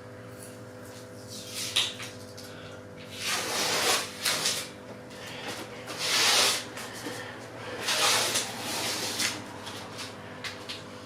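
Masking tape being pulled off aquarium glass in three noisy peels of about a second each, after a small click.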